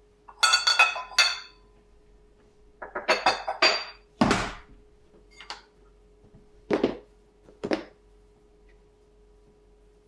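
Ceramic coffee mugs clinking against each other and the countertop as they are moved, in two short flurries. Then plastic tubs are set down on the counter: one heavier thump about four seconds in and two duller thumps near the end.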